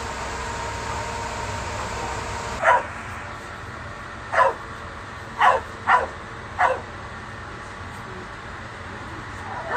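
A dog barking five times, short barks that fall in pitch, the middle two close together. Before the first bark a steady mechanical hum stops abruptly.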